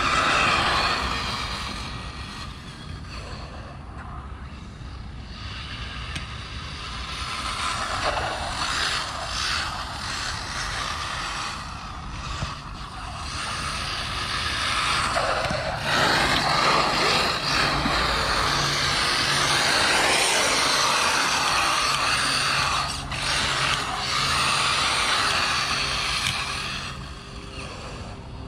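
1/8-scale RC buggy with a 1900 kV brushless motor on a Spektrum 130 A ESC, run on 4S, being driven: the motor whine rises and falls with the throttle, mixed with gear and tyre noise on concrete. It is louder in the second half and eases off near the end.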